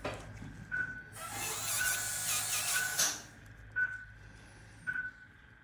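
A veterinary dental handpiece runs briefly in short spells during scaling and polishing of the dog's teeth, with a longer hiss near the middle. Under it, an anaesthetic monitor beeps steadily about once a second.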